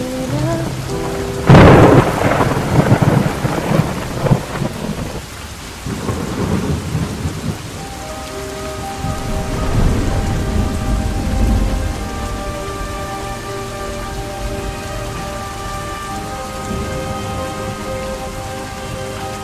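Thunderstorm with steady rain: a sharp thunderclap about a second and a half in rumbles away over the next few seconds, and a lower roll of thunder follows around the middle. Sustained musical notes come in about eight seconds in.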